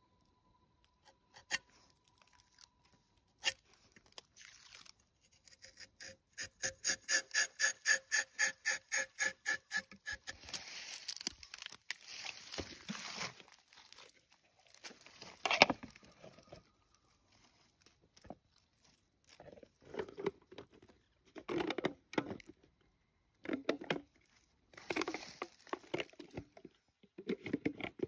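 Rubber-tapping knife shaving a thin strip of bark along a rubber tree's tapping cut, in short scraping strokes. A quick run of evenly spaced pitched pulses comes about a quarter of the way in, and a single sharp click is the loudest sound about halfway.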